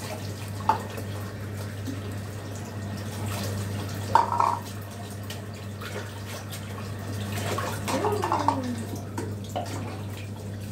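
Water running from a tap into a bathroom washbasin and poured from a cup over a small wet dog, splashing and dripping, with a steady low hum underneath.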